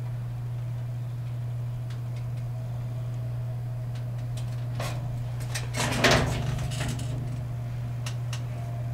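Knocking and rustling as a man shifts from a chair into a wheelchair. There is a short cluster of clicks and rattles about five to seven seconds in, loudest just after six seconds, over a steady low hum.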